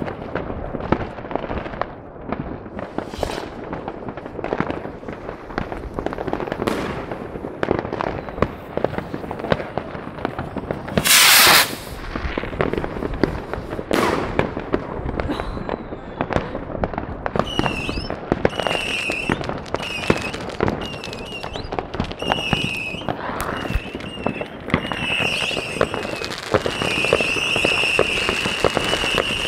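Many fireworks and firecrackers going off across a town: a continual crackle of distant bangs and pops, with one loud hissing burst about eleven seconds in. A high wavering tone comes and goes through the second half.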